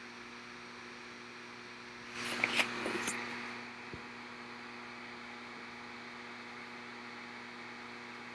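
A person shifting on a yoga mat: a rustle of body and clothing about two seconds in, with a few soft clicks. Under it runs a steady low electrical hum.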